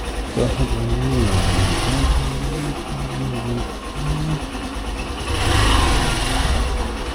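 Hero Super Splendor's single-cylinder engine running under way, with road and wind noise. Steady low engine tones settle in after a wavering start, and a louder rush of noise builds and fades about five and a half seconds in.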